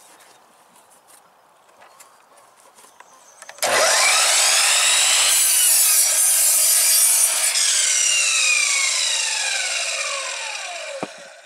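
A 12-inch sliding miter saw starts up about three and a half seconds in, its whine rising as the blade spins up. It cuts square through a wood board for about two seconds, then coasts down with a falling whine that fades out, and a small click follows.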